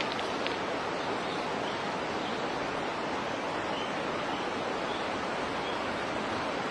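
Steady rushing of running water, an even hiss that never breaks or changes.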